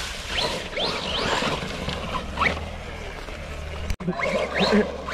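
Electric RC truck's motor whining up in quick bursts of throttle, each one a short rising whine, several a second, with a break about four seconds in.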